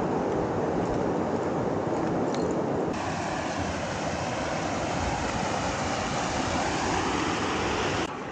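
Steady rush of flowing river water, an even noise that shifts abruptly in tone about three seconds in and drops in level near the end.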